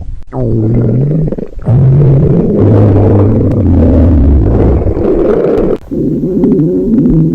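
A hungry stomach growling: a run of long, low rumbles that waver up and down in pitch, broken by short pauses about a second and a half and about six seconds in.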